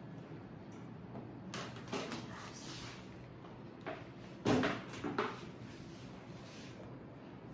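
A few knocks and clatters: a small cluster early on and the loudest knock a little past halfway, with another just after it.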